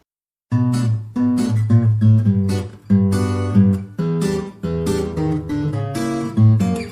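Music on strummed acoustic guitar, starting suddenly about half a second in.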